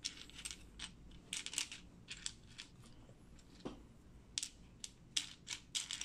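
Small plastic building bricks clicking and clattering as fingers pick through a loose pile of pieces and fit them onto a build, in irregular sharp clicks.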